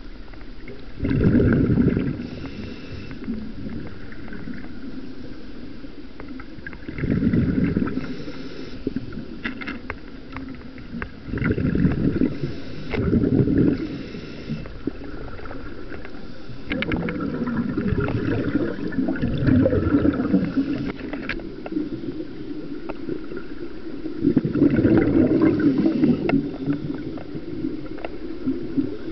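Scuba diver's breathing recorded underwater through a compact camera: a steady muffled rush, with a burst of low rumbling exhaust bubbles from the regulator every few seconds, each lasting one to two seconds.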